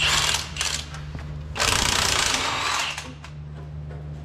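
Cordless impact driver on a long socket extension hammering out oil-soaked bolts from a truck's front-end mounting brackets, in two bursts: a short one at the start and a longer one from about a second and a half in. A steady low hum runs underneath.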